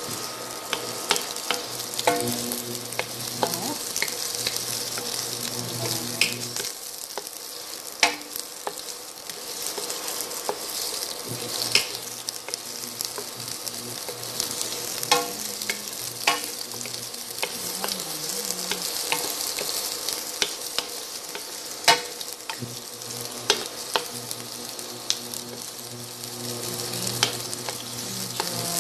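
Chopped bell peppers, onion and garlic sizzling in olive oil in a large nonstick wok, stirred with a wooden spatula that clicks and scrapes against the pan now and then.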